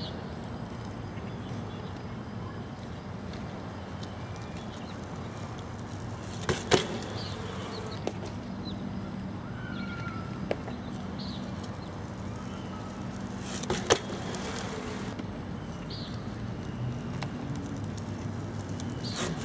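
A BMX bike ridden along a narrow concrete curb, with two sharp knocks from the bike about seven and fourteen seconds in. Beneath them run a steady low hum and a thin, steady high-pitched whine.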